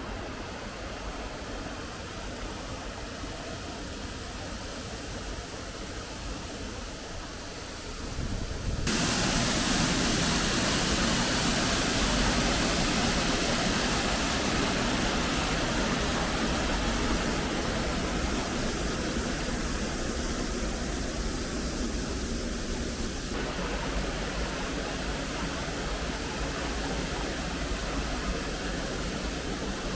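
Rushing water of a waterfall, a steady noise that jumps sharply louder about nine seconds in, with another slight change of sound later on.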